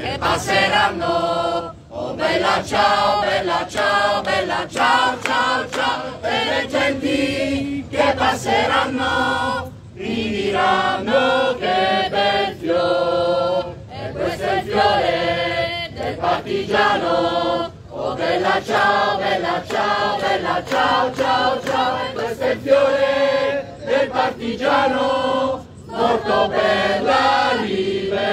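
A group of people singing together in phrases of about two seconds each, with short breaks between them.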